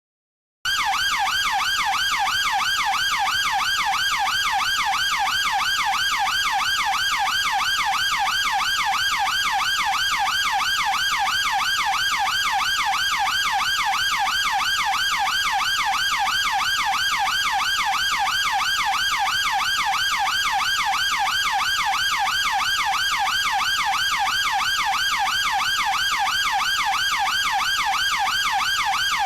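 UK police car electronic siren in a fast yelp, its pitch sweeping up and down about three or four times a second at a steady level. It starts about half a second in, after a short silence.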